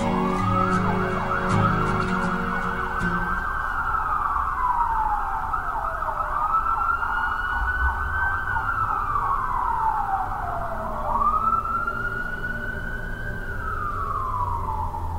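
A siren wailing: the pitch rises quickly, holds and then slides slowly down, three times over. A music track fades out under it in the first few seconds.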